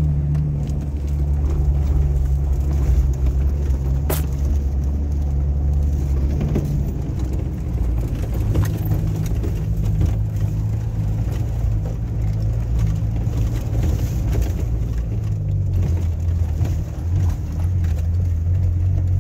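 A vehicle's engine and road noise heard from inside the cabin while driving: a steady low engine hum over rumbling noise, its pitch shifting a little about six seconds in and again near the end. A single sharp click about four seconds in.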